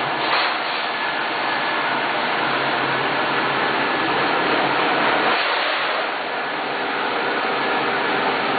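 UV curing conveyor machine running: a steady airy whir of its cooling fans, with a faint thin whine over it.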